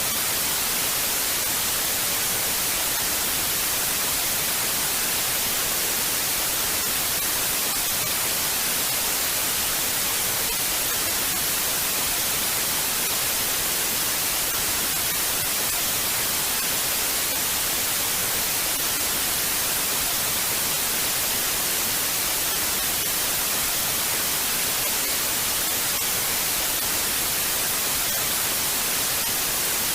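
Television static: a steady, even hiss of white noise, brightest in the high end, with no breaks or changes.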